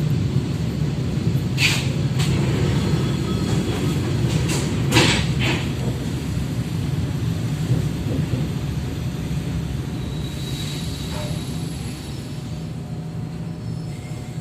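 ED4M electric train running on the rails: a steady low running noise of wheels on track, with a few sharp knocks, the strongest about five seconds in, and slowly getting quieter.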